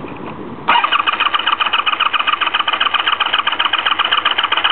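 Honda V65 Magna's V4 engine cranking on its electric starter with the choke off, an even, rapid chugging of about ten pulses a second that starts just under a second in. The bike is hard-starting and not yet catching.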